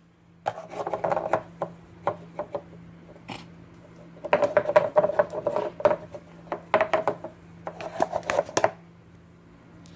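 Ice cream being scooped and packed into a plastic cup: quick scrapes and knocks of the scoop against the cup, in a short spell and then a longer busy one.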